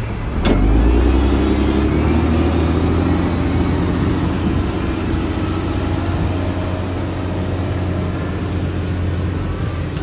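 DISD SD300N wheel loader's diesel engine running steadily under load as it works its bucket through wet sand, with a sharp knock about half a second in.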